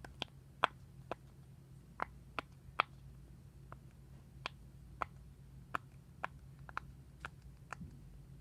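Sharp, irregular pops, roughly two a second, over a faint steady low hum.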